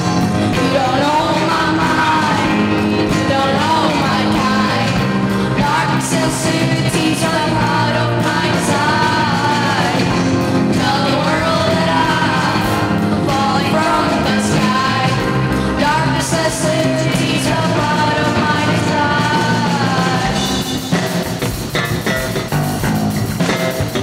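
Live student band performing a song: girls sing the lead into microphones over electric guitars, bass guitar and piano. The singing drops out near the end, leaving the instruments playing.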